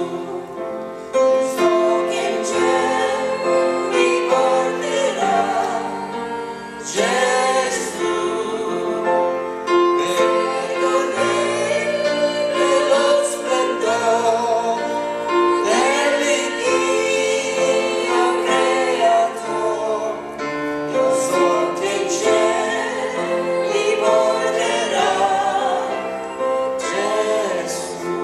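A small group of men and women singing a hymn together, with held notes.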